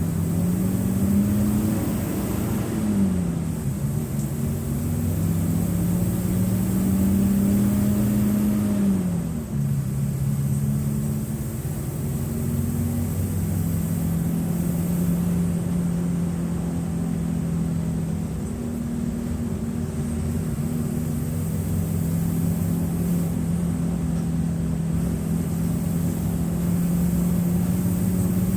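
Mercedes-Benz OF-1723 bus's OM906LA six-cylinder diesel engine pulling under way: its note climbs, falls sharply at gear changes about three and nine seconds in, then holds steady at cruising revs.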